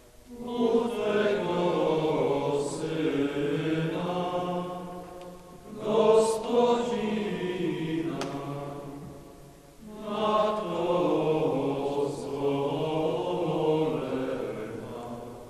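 Slow sung chant: voices holding long notes in three phrases, each swelling and then fading away.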